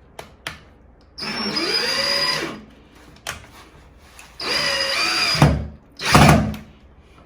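Power drill driving screws through a pre-hung door's jamb into the wall framing, in two runs of motor whine that rise and fall in pitch. Two heavy thuds follow near the end.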